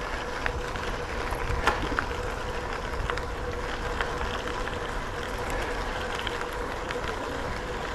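Bicycle rolling along a trail: steady tyre and riding noise with a faint steady hum and a few small scattered clicks.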